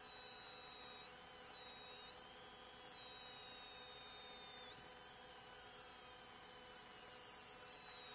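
Faint high-pitched electrical whine in a patrol car's dash-camera audio. It rises and falls in pitch every second or so, then drifts slowly lower, over a steady low hum.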